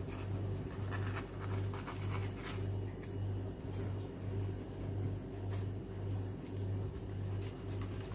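A small knife scraping and cutting soft shortcrust dough along the edge of a metal tart ring, trimming off the overhang in short, scratchy strokes. Under it runs a louder low hum that pulses about twice a second.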